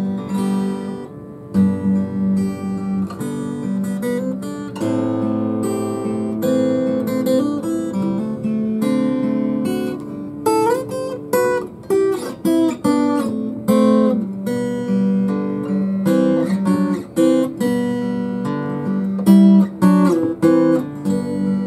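Martin acoustic guitar played solo: chords and picked melody notes, some strummed, with a few sliding notes around the middle.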